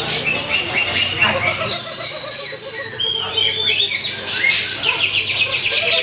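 Greater green leafbird (cucak hijau) singing a long, varied song of high held whistles, rapid trills and chirps, with several phrases overlapping without a pause.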